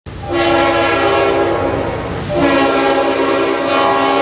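Diesel freight locomotive's multi-chime air horn sounding two long blasts, the second starting about two and a half seconds in and still held at the end, over the low rumble of the train.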